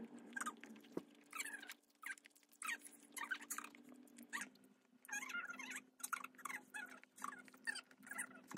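Close-up chewing of soft black sesame bread: irregular wet mouth clicks and smacks, a few each second, over a faint steady low hum.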